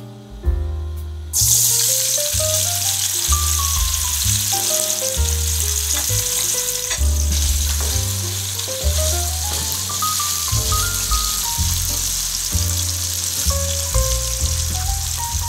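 Raw potato sticks hitting hot oil in a frying pan, setting off a sudden sizzle about a second in that carries on steadily as they fry. Background piano music plays throughout.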